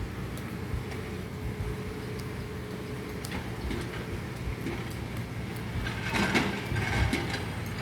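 Steady low rumble of heavy engines, with scattered clicks and a louder stretch of clatter near the end.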